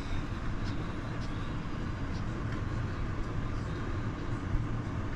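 Steady low machine hum with an even rushing noise inside a motorhome cabin.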